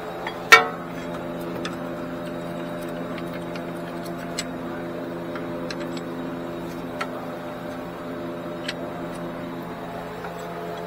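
Scattered light metallic clicks of bolts and hand tools being handled and fitted, with one sharp clank about half a second in, over a steady background hum.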